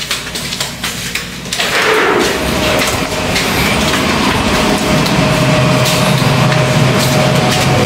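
A door opens about one and a half seconds in, and a loud, steady outdoor noise comes in, with a low hum and a faint steady whine, like machinery or traffic running nearby.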